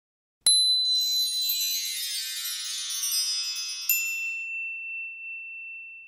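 Chiming logo sound effect: a sudden strike about half a second in opens a shimmering cascade of high tinkling chimes, then a bright ding near four seconds rings on as one high tone and fades away.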